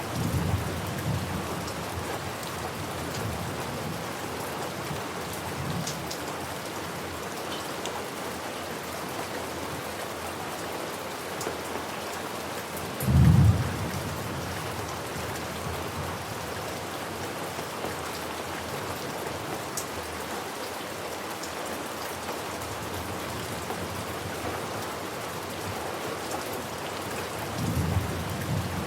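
Steady rain falling, with low rumbles of thunder near the start and near the end and a short, louder thunderclap about halfway through.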